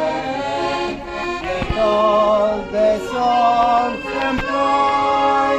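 Instrumental Christmas music: a reedy, accordion-like melody of held notes with vibrato over sustained chords, with a few light beats.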